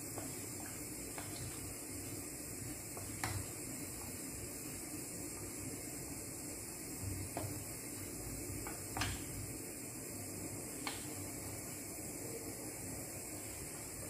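Wooden spoon stirring a creamy sauce in a frying pan: a few light knocks and scrapes of the spoon against the pan, the sharpest about three, nine and eleven seconds in, over a steady hiss.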